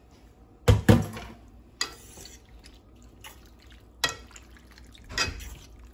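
Penne being stirred through a thick cream sauce in a nonstick skillet: wet stirring sounds with a utensil clicking against the pan, and a louder clunk about a second in.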